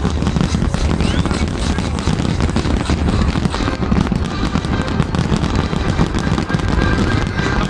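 Aerial firework shells bursting in a dense, unbroken barrage: many bangs and crackles overlapping, with a heavy low rumble underneath.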